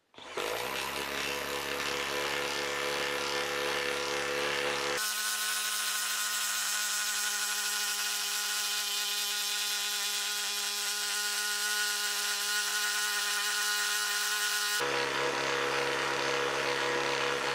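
Milwaukee M12 12-volt impact driver hammering continuously as it bores a 1¼-inch Speedbor bit into a pressure-treated board, a steady buzzing drone. The sound changes abruptly about five seconds in and changes back shortly before the end.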